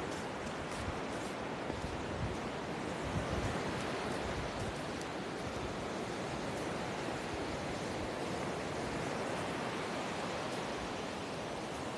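Steady rush of surf washing onto a sandy beach, with low wind rumble on the microphone, strongest about three seconds in.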